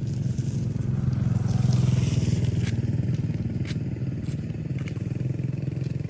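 A small engine running steadily with a low, even pulsing, swelling a little about two seconds in.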